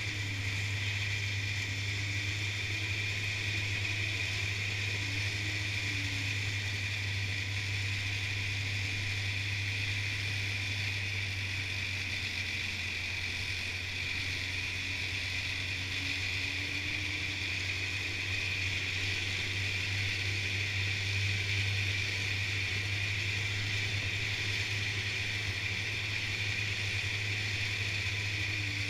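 Snowmobile running at a steady cruising speed along a packed trail, a constant engine drone with a steady hiss over it and no change in pace.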